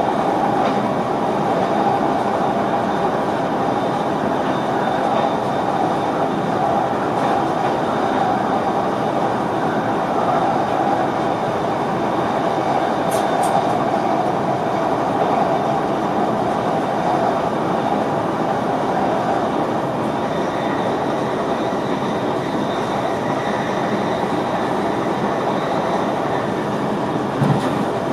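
NS VIRM double-deck electric train running, heard inside the driver's cab: a steady rumble of wheels on rails and running noise. There is a brief sharp click about halfway and a short knock near the end.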